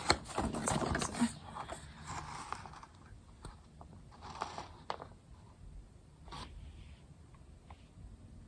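Close handling noise of small packaging pieces and a plastic lens: rustling and scraping with sharp clicks, busiest in the first two and a half seconds, then a few scattered clicks and taps.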